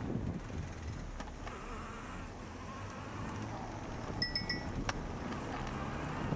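Bicycle riding slowly on a paved path: a low rumble of tyres and light wind on the microphone, with a couple of single clicks. About four seconds in come three short high beeps.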